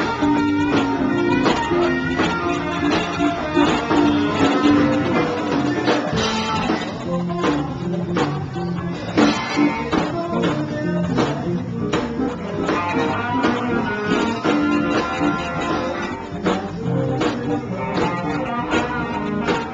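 Live blues band playing: electric guitars over a drum kit, with the drum beat keeping a steady rhythm.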